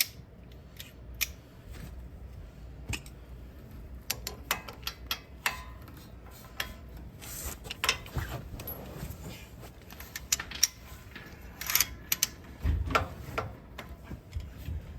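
Metal hand tools and parts clinking and clicking at irregular intervals, with a few sharper knocks.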